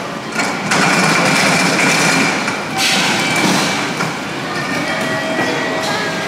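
Train moving along a station platform: a steady running noise with thin, high, whining tones, and a brief louder rush about three seconds in.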